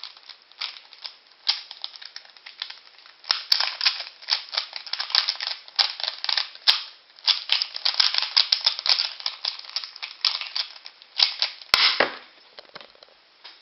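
Plastic Rubik's Cube being turned fast by hand: a dense, uneven clatter of clicks as the layers snap round, with one sharper knock near the end. It is a standard cube rather than a speed cube, one that the owner says gets stuck easily.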